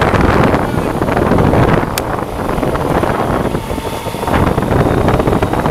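Wind buffeting the microphone of a camera on a moving motorcycle, with engine and road noise beneath it.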